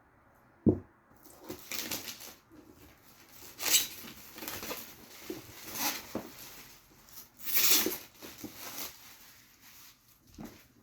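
A thump about a second in, then packaging rustling and crinkling in several bursts as a game box is unwrapped and opened by hand.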